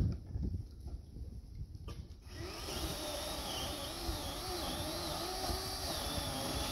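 A few low knocks, then about two seconds in a chainsaw starts running, its pitch wavering up and down as it works on deadfall, and stops near the end.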